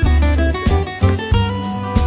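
Background music: a guitar-led track with a steady beat and bass.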